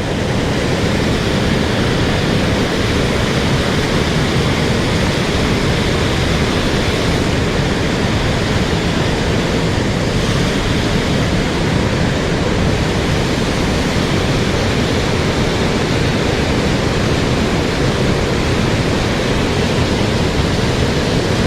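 Mountain stream water rushing, a steady, unbroken noise.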